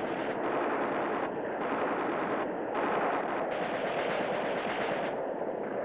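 Automatic weapons fire in long, rattling bursts broken by a few short pauses, thinning out near the end.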